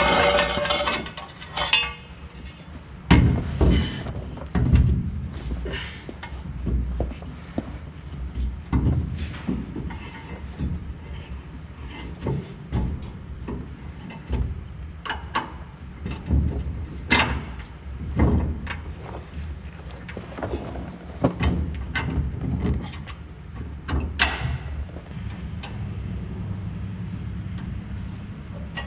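Irregular metal knocks, thumps and clanks of hands-on work on a combine. A steady low hum comes in near the end.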